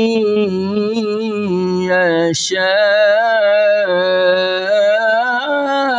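An elderly man reciting the Quran in melodic tajwid style, holding long ornamented notes with a wavering pitch. He sings 'wa yahabu li-man yashā'', with a brief 'sh' hiss about two and a half seconds in.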